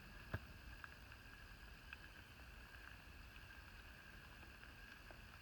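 Near silence: faint steady outdoor background hiss with a few faint, short ticks.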